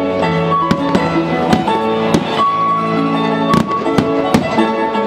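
Loud music with held, pitched notes accompanies a fireworks display, and sharp firework bangs burst over it about ten times.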